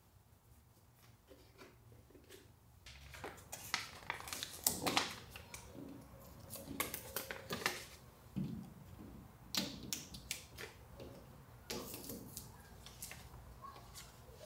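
Paper drawings being pulled off a glass door and handled: irregular crinkling and rustling of paper with sharp clicks and crackles.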